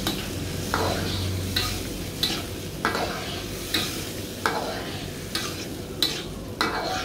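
Metal ladle scraping around a wok in repeated stirring strokes, a little more than one a second, as red chilli sambal with tomato sizzles in the oil.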